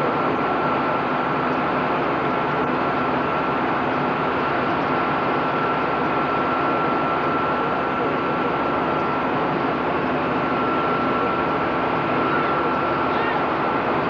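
A jet engine running steadily: an even rushing noise with a constant high whine.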